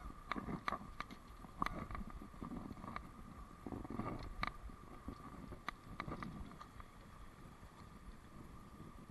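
Small stream running over a low weir, a steady wash of water. Scattered sharp clicks and knocks, mostly in the first six seconds, with some low rumble.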